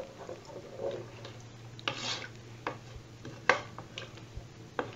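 A utensil stirring rice, chickpeas and water in a metal pot, with scattered knocks and scrapes against the pot; the sharpest knock comes about three and a half seconds in. A faint low hum runs underneath.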